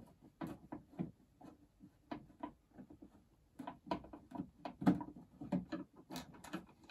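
Faint, irregular clicks and small scrapes of a short hand screwdriver turning screws out of the underside of a treadmill console cover.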